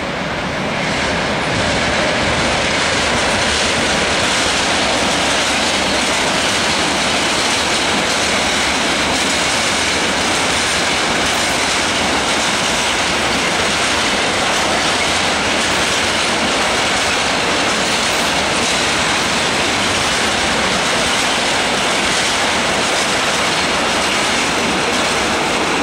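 Freight train of tank wagons, hauled by a DB class 185 electric locomotive, rolling past at close range: a steady, loud noise of steel wheels running on the rails. It builds over the first couple of seconds as the train draws level, then holds steady as the wagons go by.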